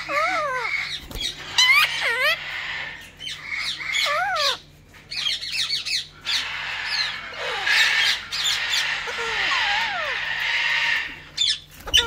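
Caged ringneck parakeets calling: short squawks that rise and fall in pitch, repeated several times, then a longer stretch of harsh, raspy screeching from about six seconds in.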